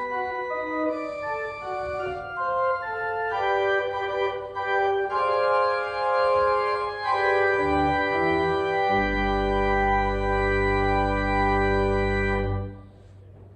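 Organ playing sustained chords, with a deep bass note coming in about nine seconds in under a long held final chord; the chord is released near the end, leaving a brief fading echo. This is the closing postlude of the service.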